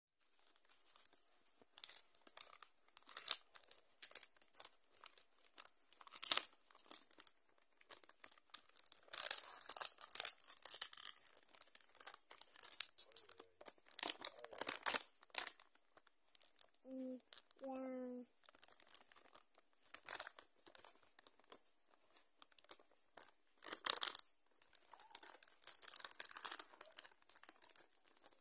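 Crinkly plastic gift packaging being torn open and rustled by hand, in irregular bursts of tearing and crumpling. A brief two-note voice sound comes a little after the middle.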